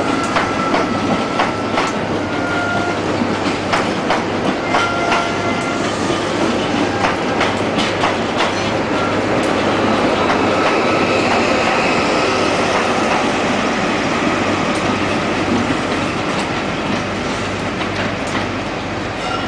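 Express passenger train's coaches rolling out over station pointwork: rapid wheel clicks over rail joints and short, high flange squeals. About halfway through the clicks give way to a louder, steady rolling rumble.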